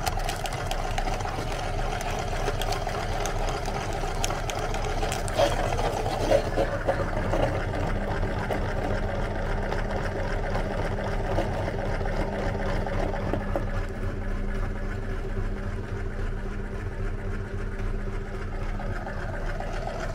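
Meat grinder running with a steady mechanical hum as it grinds frozen ice cream bars, with a few sharp knocks about five to seven seconds in.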